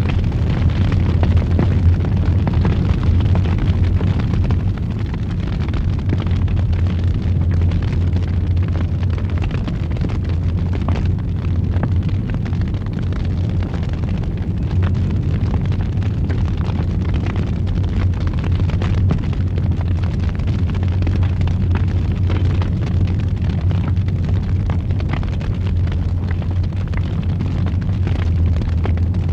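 Wood fire burning in a fireplace: a steady low roar with frequent small crackles and pops.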